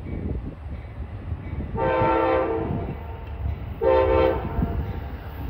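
An Amtrak passenger locomotive's air horn sounds two blasts of a multi-note chord as the train approaches. The first blast, just under a second long, comes about two seconds in; the second, shorter, comes about two seconds later. Both sit over the low rumble of the oncoming train.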